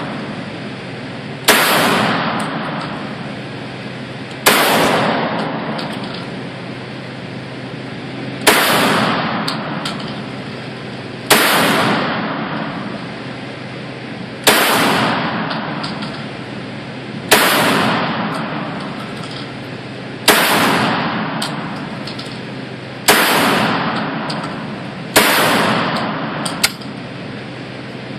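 SAIGA 12-gauge semi-automatic shotgun firing 2¾-inch slugs: nine single shots, about three seconds apart, each followed by a long echo off the concrete walls of an indoor range.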